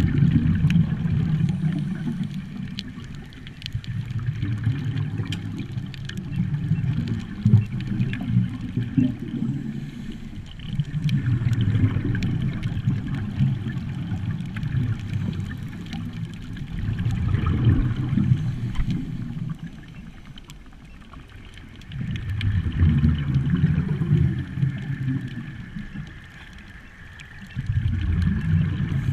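Scuba diver breathing through a regulator underwater: exhaled bubbles rumble and gurgle in long bursts, about every five seconds, with quieter pauses for each inhalation.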